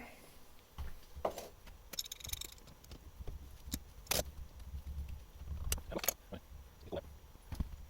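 Scattered metallic clinks and knocks from a frost-cracked brass ball valve and hand tools being handled and turned on a workbench, about eight separate sharp taps, one with a brief jingling ring about two seconds in.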